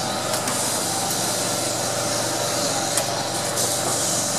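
Tram in motion, heard from its open upper deck: a steady rushing running noise with a faint steady whine, and a few sharp clicks, the loudest about three seconds in.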